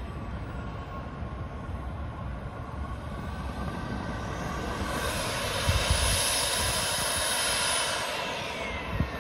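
Xicoy X45 model jet turbine running on the ground with a high whine that rises and grows louder about five seconds in, then falls in pitch and winds down near the end.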